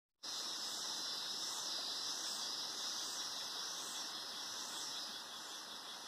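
Cicadas singing in chorus: a continuous high-pitched buzz that swells and fades in a steady pulse, a little faster than once a second.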